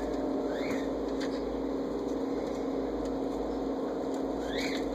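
Two short, high kitten mews, each rising and falling, about half a second in and again near the end, over a steady background hum.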